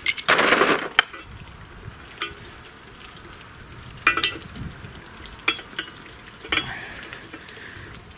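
Hand tools clinking and knocking on the metal fittings of an old stationary engine's fuel line, a few separate sharp knocks, after a short rushing hiss for about the first second.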